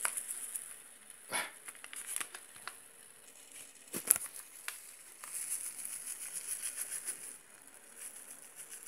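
Paper seasoning packets crinkling as they are handled and shaken out over a pot, with a few sharp clicks, the loudest about four seconds in, and a stretch of quick rustling from about five to seven seconds in. A faint steady hiss lies underneath.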